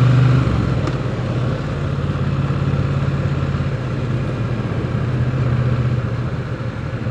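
Triumph Bonneville T100's parallel-twin engine running while riding. The engine note is loudest for the first half second, then drops back to a steady cruise under a rush of wind and road noise.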